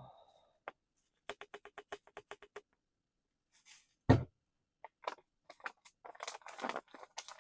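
A quick run of clicks, about eight a second, lasting a little over a second, with a faint steady tone beneath them. A single loud thump follows about four seconds in. Near the end there is crinkling and rustling, like packaging or gear being handled.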